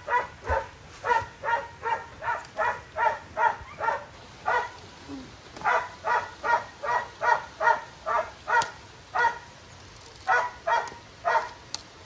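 A dog barking over and over in quick runs of short barks, about three a second, with a couple of brief pauses.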